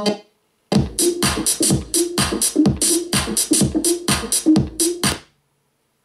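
Music played through a Harman Kardon Onyx Studio 6 Bluetooth speaker: one tune cuts off right at the start, and after a short gap a new track with a fast, even beat of about four hits a second and a repeating bass note plays, then stops abruptly about five seconds in.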